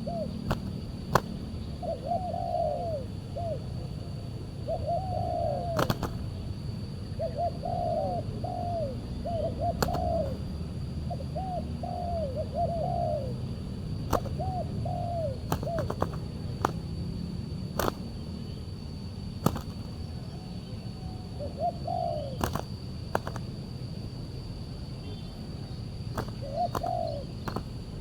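Spotted doves cooing: repeated phrases of short, rounded coo notes in groups, densest in the first half and sparser later, over a low steady rumble, with occasional sharp clicks.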